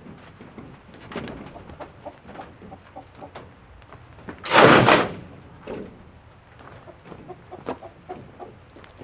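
Chickens clucking softly, with scattered small clicks and knocks, and a brief loud rush of noise about halfway through.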